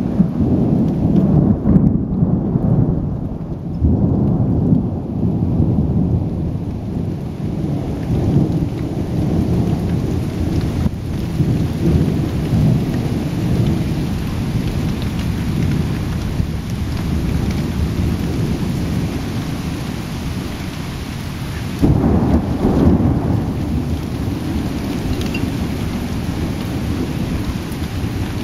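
Thunder rolling and rumbling almost without a break during a night thunderstorm, over steady rain. The rumble is strongest in the first few seconds and swells up again suddenly some seconds before the end.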